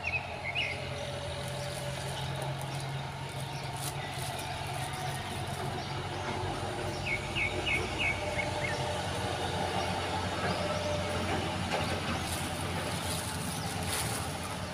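Outdoor background of steady noise with a low hum, and a bird chirping a quick run of short notes about seven seconds in.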